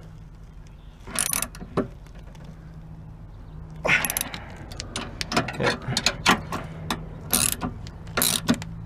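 Hand ratchet clicking in short bursts of strokes as a tow hook's mounting bolt is tightened.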